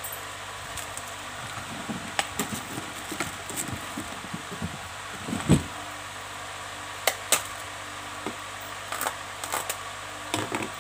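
Steady background hum with scattered rustles, clicks and soft knocks from hands handling cloth or nearby objects. The loudest is a dull thump about five and a half seconds in.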